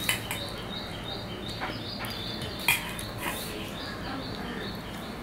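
Fingers mixing rice and curry on a stainless steel plate, with two sharp clinks against the plate, one at the very start and one a little past halfway. A bird chirps in the background, about three short high chirps a second, stopping about two-thirds of the way through.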